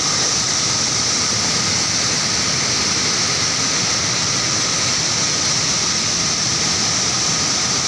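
Steady rushing of fast-flowing floodwater, an even, unbroken roar.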